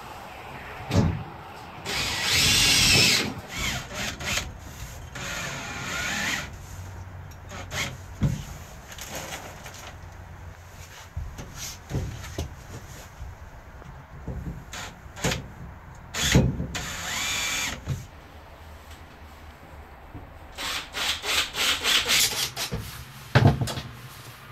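Cordless drill-driver fastening 4 mm laminated plywood side panels inside a van's cargo bay. It runs in about four short bursts, its whine rising in pitch. Sharp single knocks fall between the bursts.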